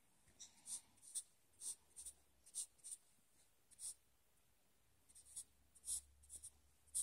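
Felt-tip marker scratching across paper as short strokes are drawn: a quick run of brief scratches, one lone stroke around the middle, then another run near the end.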